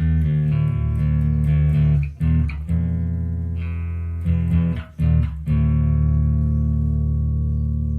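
Electric bass guitar played through a Fender Rumble LT25 bass combo amp: low sustained notes that change pitch, with two brief breaks and fresh plucks about two and five seconds in. A last note then rings on to the end.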